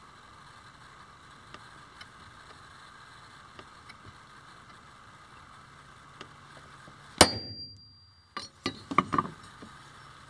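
Hammer striking a steel center punch on a galvanized steel pipe strap to mark bolt-hole positions: one sharp metallic strike about seven seconds in with a high ring lasting about a second, then a quick cluster of lighter clinks and knocks as the punch is reset.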